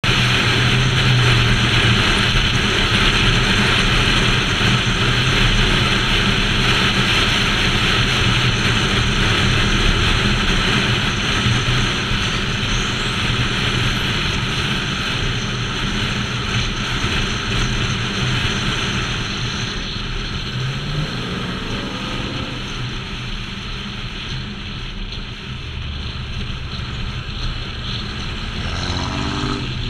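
Pickup truck driving at road speed, heard from a camera mounted on its hood: a steady rush of wind and road noise over a low engine hum. Near the end an engine's pitch rises briefly as it accelerates.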